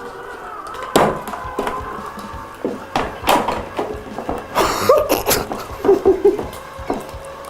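Close-miked eating sounds from spicy buldak noodles: irregular clicks and smacks of chewing and utensils, with a short vocal sound about five seconds in.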